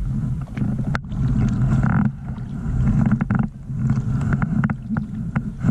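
Wind buffeting the microphone on a kayak: a low, fluctuating rumble, with a few light clicks and knocks of gear.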